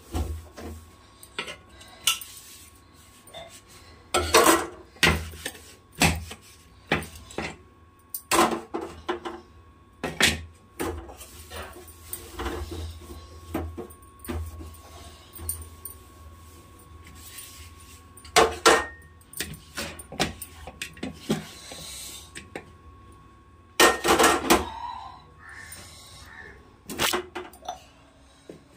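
Steel kitchen utensils and vessels clattering and clinking against a stainless steel gas stove and counter as they are handled and moved, in irregular knocks with several louder clatters.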